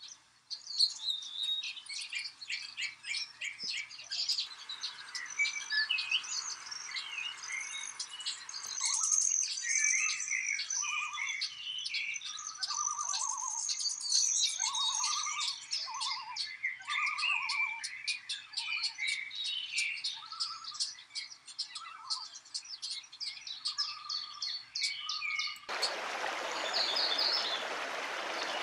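Chorus of forest songbirds, many overlapping chirps, trills and whistles, with a run of repeated lower notes in the middle. About three seconds from the end, the rush of a mountain stream starts suddenly and covers the birds.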